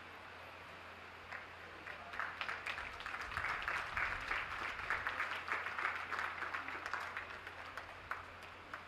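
Ringside crowd applauding. Scattered claps begin about a second and a half in, build to steady clapping through the middle, and thin out near the end.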